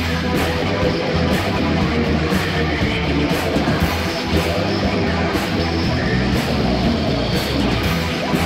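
Heavy metal music: strummed electric guitars over bass and drums, driving at a steady beat.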